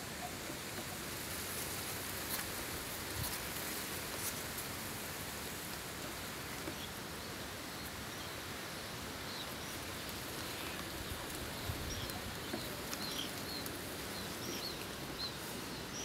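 Steady outdoor background hiss with faint, scattered high chirps of small birds, mostly in the second half.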